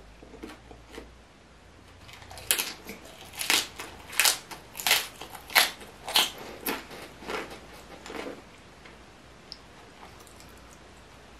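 Close chewing of a raw napa cabbage leaf wrap filled with spicy stir-fried pork: a run of crisp crunches about every two-thirds of a second, loudest in the middle, fading out a few seconds before the end.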